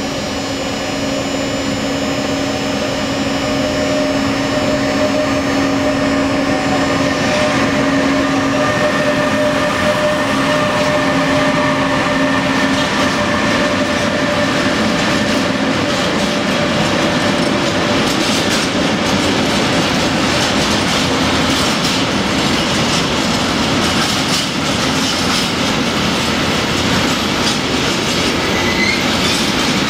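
Electric freight locomotive running past, its motors giving a steady whine of several tones that fades about halfway through. Then the freight wagons roll by with a rapid clatter of wheels over the rail joints, and a short squeal comes near the end.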